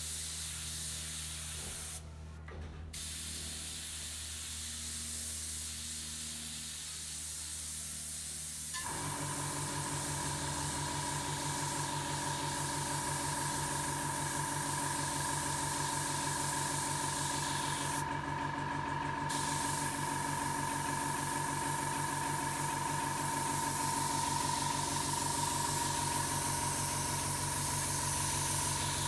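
Gravity-feed airbrush spraying paint with a steady hiss of air. The hiss stops briefly about two seconds in and again near the eighteen-second mark. About nine seconds in, a steady mechanical hum with a higher whine joins it and runs on.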